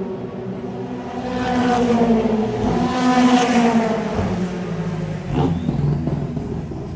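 Racing car engines running at high revs, their pitch falling, climbing for a couple of seconds, then dropping again as cars pass.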